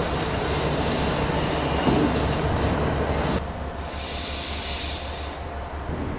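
A train running close by on the rails, its noise dropping off abruptly about three and a half seconds in, followed by a high hiss.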